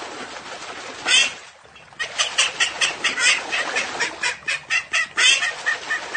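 Domestic ducks quacking: one loud quack about a second in, then a rapid run of quacks, about four a second, from two seconds in, over water splashing in a tub.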